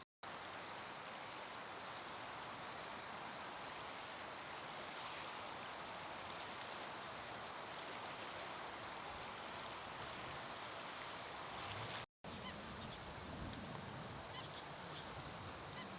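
Steady rushing noise of a rainstorm, wind and rain together. It cuts out for a moment twice, and after the second break a few faint, short, high sounds come through.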